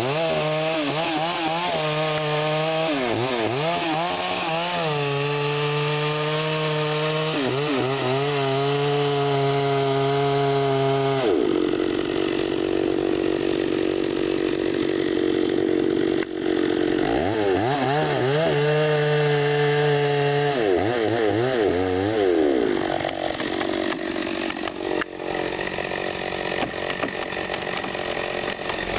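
Chainsaw running in a large redwood trunk, making the back cut opposite the face notch to fell the tree. The engine pitch wavers and dips over and over as the bar works through the wood, and the engine note falls away over the last few seconds.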